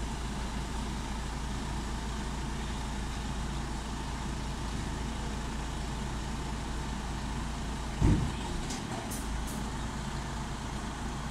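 Heavy truck diesel engine running steadily at low revs as the oversize-load convoy creeps along. About eight seconds in there is a sudden loud thump, followed by a few short sharp hisses.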